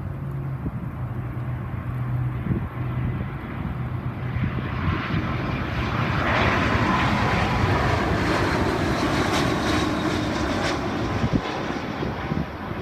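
Jet airliner's engines at takeoff power, the noise swelling to a peak with a faint whine midway and then easing off as the aircraft goes past. Gusty wind buffets the microphone underneath.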